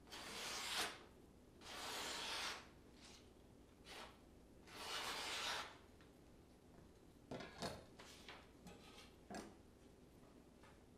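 A freshly sharpened carbon steel Sabatier kitchen knife slicing down through a hanging sheet of paper in three hissing strokes of about a second each, a test of the new edge. A few light clicks and paper rustles follow in the second half.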